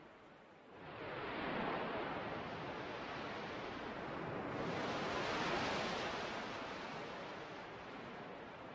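Ocean surf washing onto a shore: two swells of rushing water noise, one about a second in and a louder one around the middle, each fading away.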